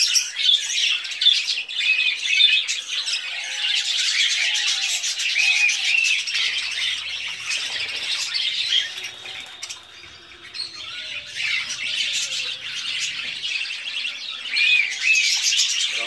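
A roomful of caged budgerigars chattering, with dense overlapping chirps and squawks that dip briefly about ten seconds in.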